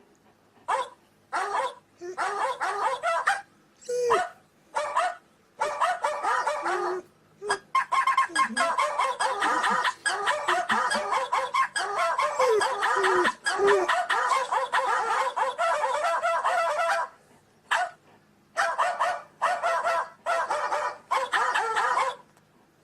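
Animal-sound ringtone from a phone speaker: chicken clucking and rooster crowing mixed with dog barking. It comes in short bursts, runs almost without a break through the middle, then returns to short bursts near the end.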